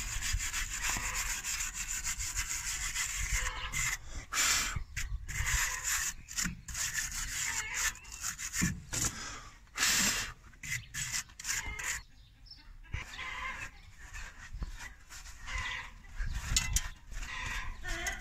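Wire brush scrubbing rust off a car's steel wheel hub in quick repeated scraping strokes, which thin out and grow quieter after about twelve seconds.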